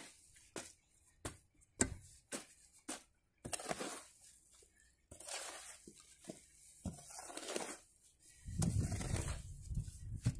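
Small hoe chopping into and dragging through wet clay-and-earth brick mud, breaking up the clods as it is mixed: sharp chops about twice a second, then longer scraping pulls. A low rumble near the end.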